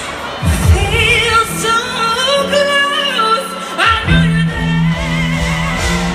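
Live female pop vocal singing a ballad melody with vibrato over band accompaniment, with low sustained bass notes coming in about four seconds in.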